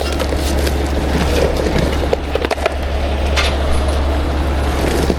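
Heavy machinery running with a steady low diesel drone, over scattered short knocks and clanks.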